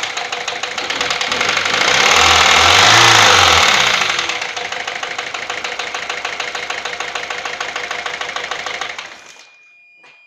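Peugeot 407 1.6 HDi four-cylinder turbodiesel engine revved once, then idling with a fast, even ticking knock: the abnormal noise under investigation. The engine is switched off about nine seconds in.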